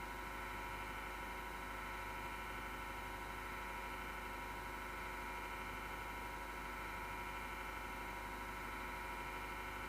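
Six-year-old desktop PC power-supply fan running with a grinding noise, a steady drone with a high whine in it and no let-up; the grinding and vibration mean the fan needs lubrication or replacement.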